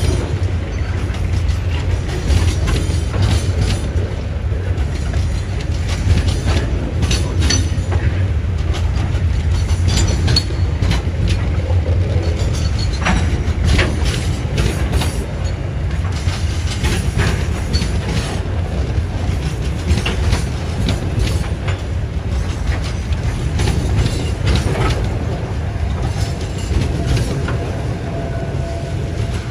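Loaded freight boxcars rolling past close by: a steady low rumble of steel wheels on the rails, with frequent clanks and rattles from the wagons and a few brief high squeaks.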